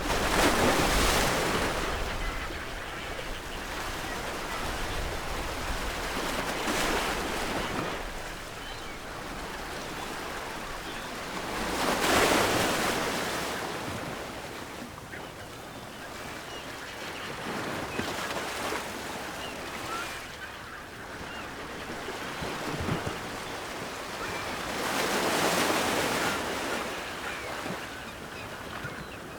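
Ocean surf breaking on a shore: slow swells of wash, the biggest near the start, about twelve seconds in and near the end, a smaller one around seven seconds, with a steady hiss of water between.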